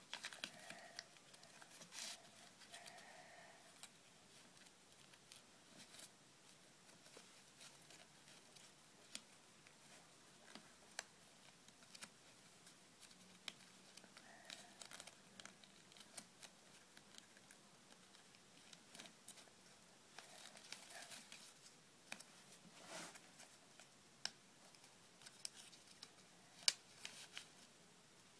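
Faint rustling and crinkling of origami paper being folded and creased by hand, a scatter of soft irregular crackles and clicks.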